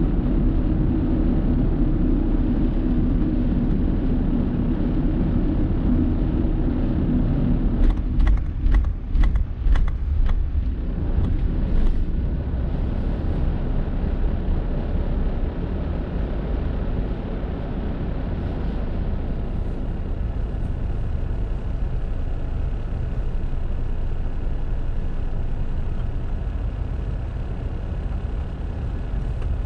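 Car road and engine noise while driving: a steady low rumble, heavier at first. About eight seconds in comes a quick run of about six sharp knocks, then the rumble settles lighter as the car slows in traffic.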